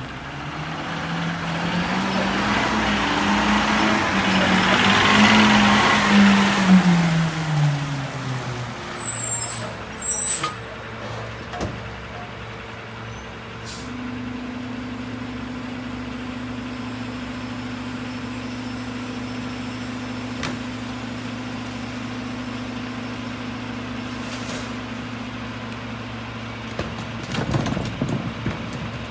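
Mack garbage truck's diesel engine pulling away, rising in pitch, holding, then dropping as the truck slows, with short air-brake hisses as it stops. It then idles steadily, a second steady hum joining about halfway through, and a wheeled trash cart rattles near the end.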